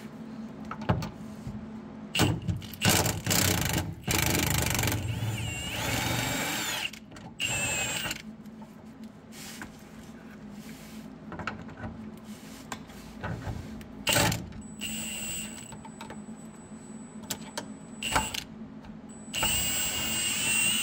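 A cordless power tool runs in several short stop-start bursts while suspension bolts under the car are loosened. The longest burst, about four seconds in, lasts a few seconds and has a whine that rises and falls.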